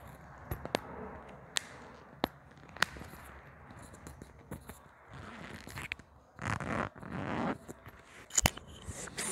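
Close-up handling of a smartphone and its wired earphones: scattered sharp clicks. About six and a half seconds in come two rough scraping rubs, and another click follows near the end.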